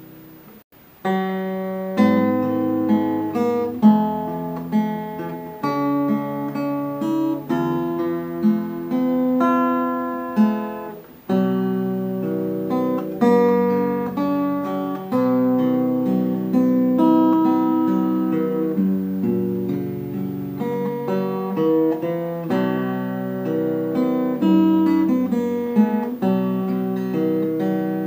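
Background music on acoustic guitar, picked notes and strummed chords. It breaks off briefly and comes back in about a second in.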